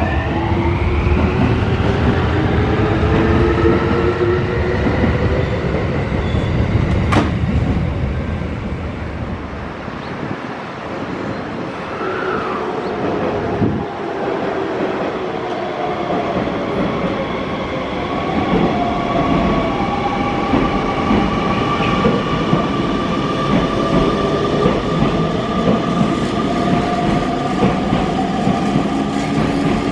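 Electric commuter trains moving through the platform. The motors whine in tones that climb in pitch as a train picks up speed, over wheel rumble and clatter on the rails. The sound eases about ten seconds in, then a second train's motor whine rises again in the last part.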